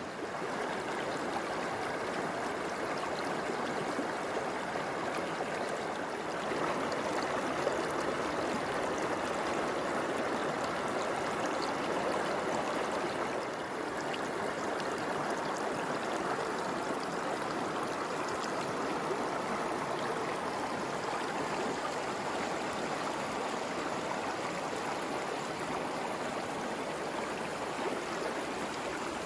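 A creek running over rocks: a steady, even rush of water.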